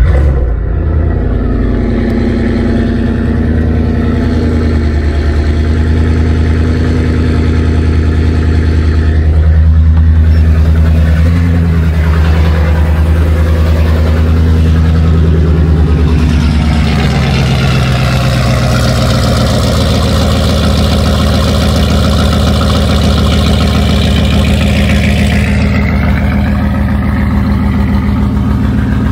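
Ford F-150 pickup engine starting up after sitting for a couple of days and then idling steadily. It is a little louder about ten seconds in, and its note shifts at about sixteen seconds.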